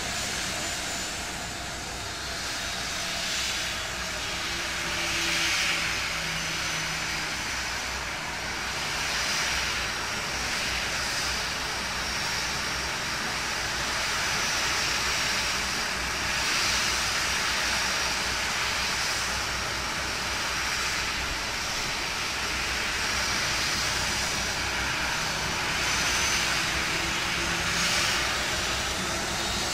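Boeing 737's jet engines running at idle, a steady high whine over a hiss, as the airliner taxis in and stops at its stand.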